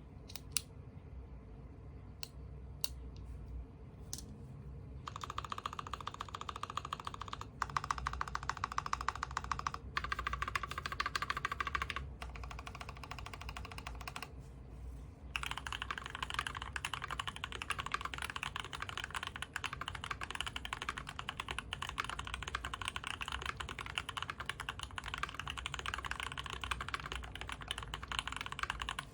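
Custom Whale75 mechanical keyboard with U4T tactile switches on a brass plate and GMK keycaps being typed on. A few single keystrokes come first, then fast continuous typing from about five seconds in, with a brief pause about halfway through.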